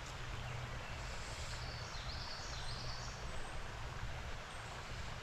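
Steady rush of a flowing stream with a low rumble underneath, and a few high bird chirps from about one and a half to three seconds in.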